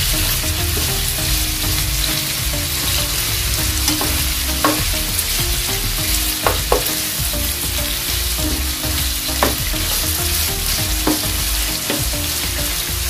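Chicken pieces frying with a steady sizzle in oil in a nonstick pan as a spatula stirs and turns them, with several sharp knocks of the spatula against the pan. The raw chicken is being seared until its blood is cooked off.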